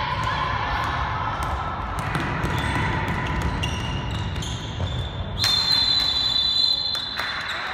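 A handball bouncing and shoes squeaking on a sports-hall floor during play. About five seconds in, a referee's whistle gives one long blast of about two seconds, stopping play.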